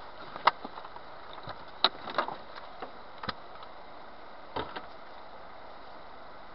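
A handful of short, sharp clicks and knocks, about five spread over the first five seconds, over a steady low hiss.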